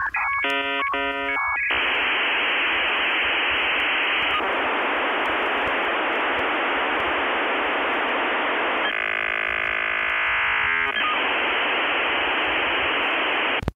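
Dial-up modem handshake sound: a quick run of switching chirpy tones, then a loud, steady harsh hiss. About nine seconds in it turns to a couple of seconds of buzzy stacked tones, then the hiss returns and cuts off abruptly at the end.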